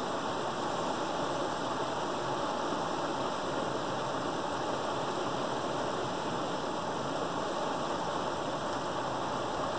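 Creek water rushing steadily through a gap pulled open in a beaver dam.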